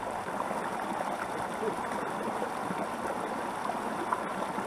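Small mountain creek running steadily, shallow water flowing over and around logs and stones.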